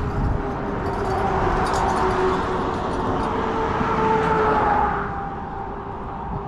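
An engine passing close by: a steady hum that grows louder to a peak about four seconds in, drops slightly in pitch, then fades.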